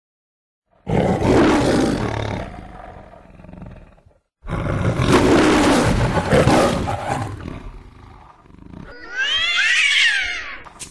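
Lion roaring twice, each roar about three seconds long with a short gap between. Near the end comes a shorter, higher-pitched call that rises and falls.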